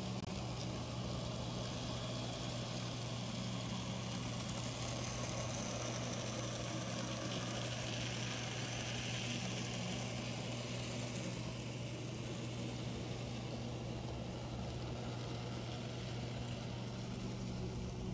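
N scale model freight train with Penn Central and Conrail diesel locomotives running past on the track: a steady low hum throughout, with a faint higher whir that swells about eight to ten seconds in.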